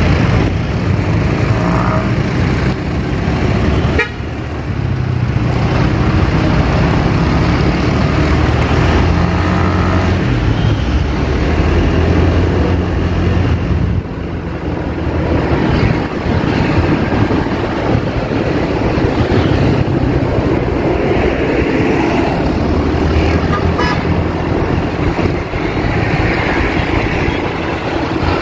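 City road traffic heard from a moving vehicle: a steady engine drone with road and wind noise, and a few short car horn toots. The sound drops suddenly about four and fourteen seconds in.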